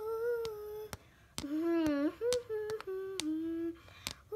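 A child humming a tune in long held notes, the pitch dropping lower about halfway through with a brief waver, over light clicks and taps as plastic dolls are jiggled about.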